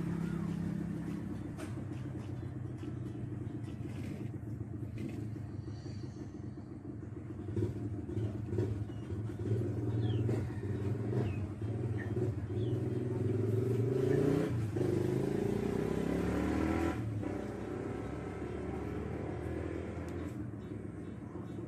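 A motor vehicle's engine running with a steady low hum. Its pitch rises in the middle as it speeds up, then settles. Light taps and clicks are scattered through it.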